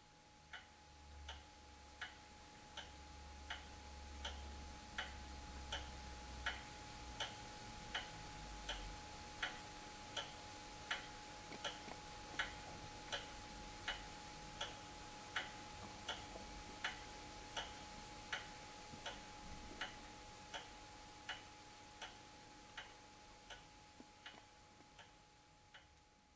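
Weight-driven pendulum wall clock in a wooden case ticking steadily, a little under one and a half ticks a second.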